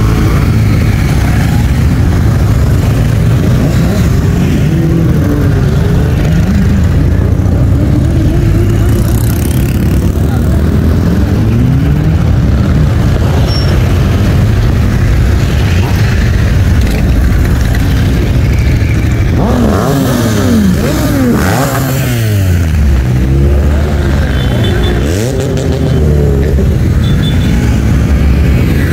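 A procession of motorcycles riding past, engines running and revving, with the pitch of each bike rising and falling as it goes by. About two-thirds of the way through, a cluster of bikes passes close and revs.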